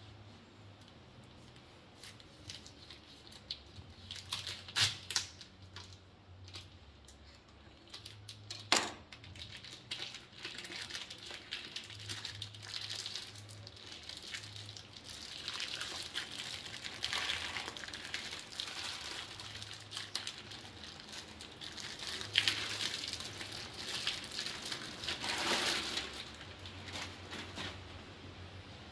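Vacuum-sealed plastic wrapping being cut open and peeled off a whole beef scotch fillet, crinkling and tearing, with a few sharp knocks, the loudest about nine seconds in.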